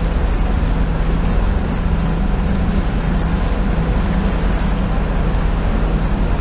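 Small center-console motorboat running at speed: a steady engine drone with water rushing along the hull and wind on the microphone.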